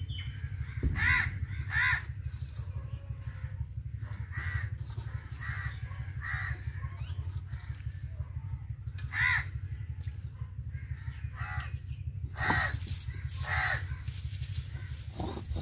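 Crows cawing, single harsh caws about nine times at irregular intervals, over a steady low rumble.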